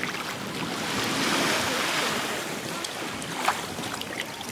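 Shallow sea surf washing, swelling about a second in and easing off, with wind on the microphone. A short click about three and a half seconds in.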